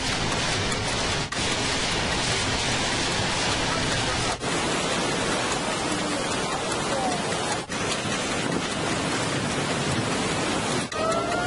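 Tsunami floodwater rushing through a town, a loud steady rush of water, broken by brief dips three times. Near the end a steady tone starts, rising slightly in pitch.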